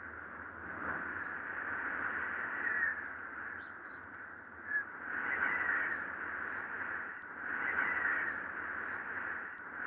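A flock of birds calling many at once, in a continuous cawing chorus that swells and fades every couple of seconds, with a few short higher cries.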